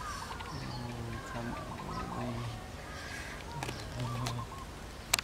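A low, murmuring human voice with short, high, arching squeaky calls from a baby monkey being hand-fed fruit. A sharp click comes near the end.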